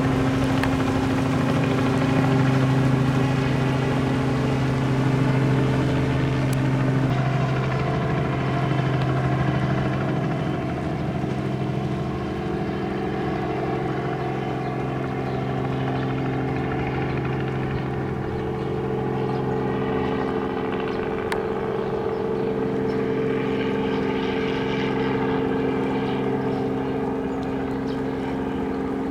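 Steady engine drone made of several held tones, the lowest a low hum, shifting slightly in pitch about 7 seconds in and again around 22 seconds.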